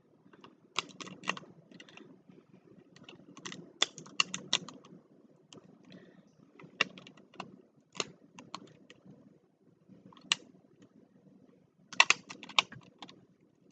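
Plastic tiles of a Rubik's Magic folding puzzle clacking against each other as it is flipped and refolded by hand: irregular clusters of sharp clicks, loudest in a burst near the end.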